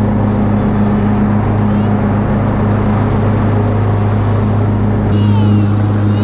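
Cub Cadet riding lawn mower's engine running steadily under mowing load, with an even low hum.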